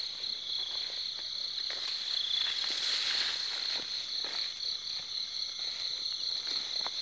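A steady high-pitched trilling chorus of night insects, with faint rustling and footsteps through grass.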